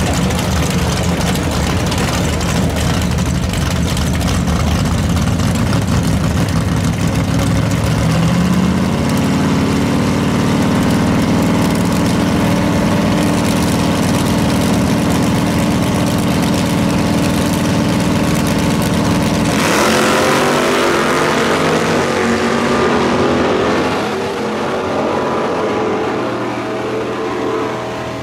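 Drag-racing V8s at the starting line, first running rough and low, then about eight seconds in stepping up and holding a higher steady engine speed. About twenty seconds in they launch at full throttle, the engine note climbing in pitch as the cars pull away down the strip, then fading.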